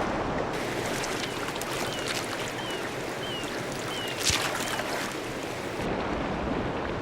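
Waterfall rushing steadily, with a sharp splash about four seconds in. Midway, a bird gives a series of about six short, high, falling chirps.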